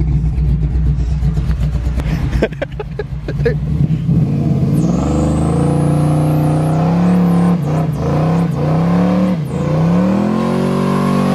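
1986 Oldsmobile Cutlass G-body with a carbureted engine doing a burnout. The engine rumbles, then from about four seconds in revs up hard and holds high revs with the rear tyres spinning, dropping briefly a few times before climbing again near the end.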